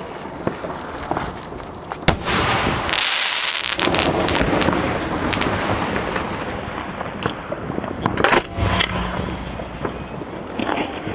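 Fireworks show heard from the firing barge: sharp reports of shells launching and bursting. A dense crackling hiss runs from about two seconds in to about nine seconds, with the loudest bangs near the start of it and again near its end.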